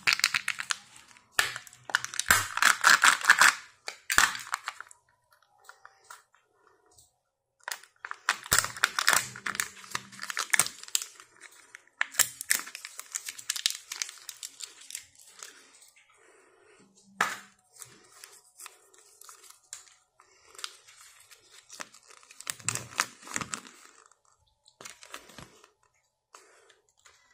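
Foil lid being torn off a Kinder Joy egg, then plastic and paper crinkling in bursts as the toy and its folded paper leaflet are handled. The loudest tearing comes in the first few seconds, with another long stretch of crinkling from about eight to fifteen seconds in and fainter rustles after.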